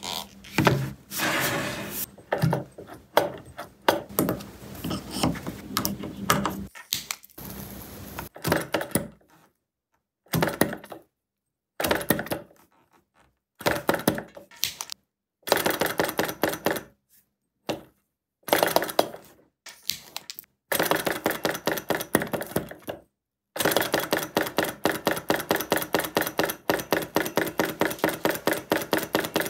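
SaiHu SH-02 flame-eater vacuum engine model on a cold start after years unused: knocks and rattles of the model being handled, then short bursts of clatter broken by abrupt cuts. In the last few seconds the engine runs steadily with a rapid, even clacking.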